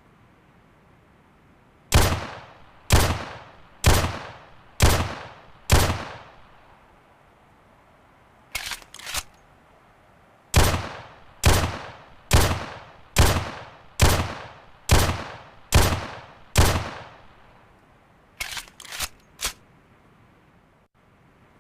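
11.4mm pistol firing single shots about a second apart, each with a ringing echo: a string of five, then a string of seven, each string followed by a few short, quieter clicks.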